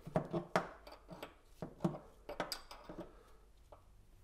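Irregular small clicks and scrapes of a gloved hand twisting a drain fitting back on at the lower cowl of an outboard motor, busier in the first half and thinning out toward the end.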